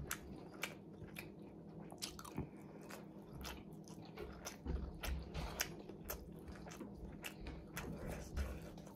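Close-up chewing and biting of food, with frequent small crunchy clicks and soft mouth sounds.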